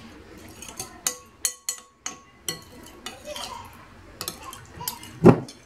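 Metal spoon stirring water into leftover chermoula marinade in a glass bowl, scraping and clinking against the glass in small irregular clicks, with one louder knock near the end.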